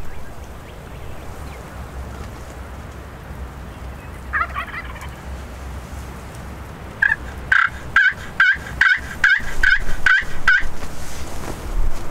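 Wild turkeys calling: a short call about four seconds in, then a run of about ten evenly spaced yelps, roughly three a second, over the last few seconds. A low wind rumble runs underneath.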